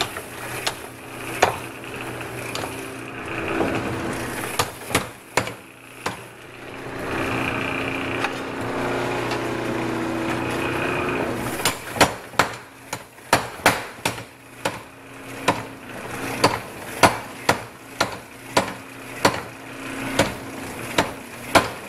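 Mechanical power hammer forging red-hot leaf-spring steel under a hand-held tool: the machine hums with a few single blows in the first half, then from about halfway through the ram strikes steadily at about two blows a second.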